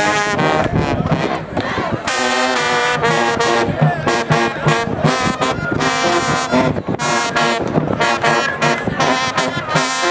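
A brass-heavy marching band playing loudly, the horns sounding in many short, chopped notes.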